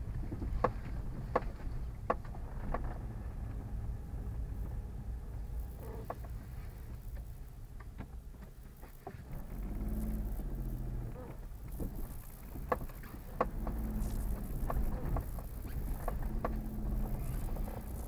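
Car heard from inside the cabin driving over a rough, potholed road: a steady low engine and road rumble with repeated sharp knocks and rattles as it jolts over bumps. About halfway through the engine note rises, and it swells and eases a few more times.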